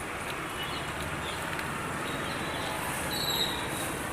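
Steady outdoor street background noise, with a few faint high chirps, the clearest about three seconds in.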